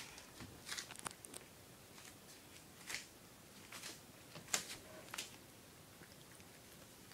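Cats eating soupy rehydrated cat food from a bowl: a few faint, irregular wet clicks of lapping and licking.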